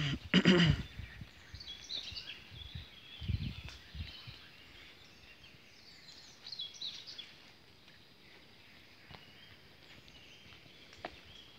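Several birds chirping in short high calls in woodland, in two bouts, over a quiet outdoor background. A brief loud noise about half a second in and a few low thuds a few seconds in come from footsteps and handling as the person filming walks across the grass.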